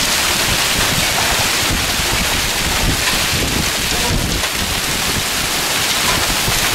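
Heavy thunderstorm rain pouring down steadily, with strong wind gusts buffeting the microphone.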